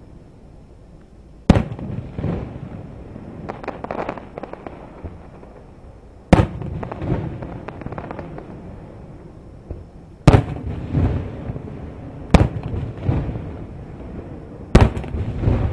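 Aerial firework shells bursting over the sea: five sharp bangs a few seconds apart, each followed by a couple of seconds of lower, uneven rumble.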